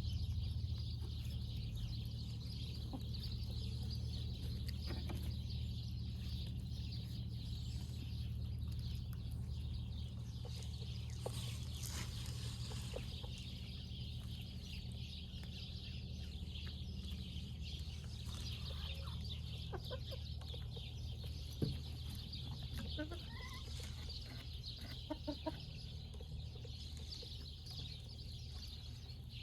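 Chickens clucking, with short scattered calls mostly in the second half, over a steady low hum and a high steady hiss.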